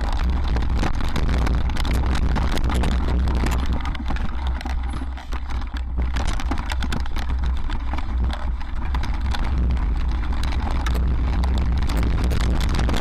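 Mountain bike clattering and rattling over a rocky trail, with dense quick knocks, under wind buffeting the microphone in a constant low rumble. The rattle eases briefly about four to six seconds in.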